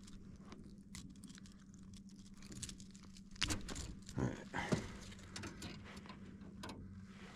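Handling noise in a boat: scattered clicks, then a cluster of knocks and rustles about three and a half to five seconds in, over a steady low hum.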